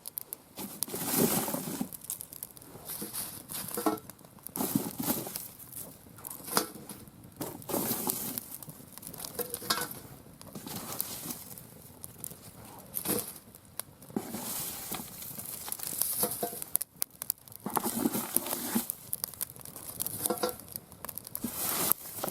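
Mixed-hardwood fire burning in a round fire pit stand, with irregular crackles and snaps.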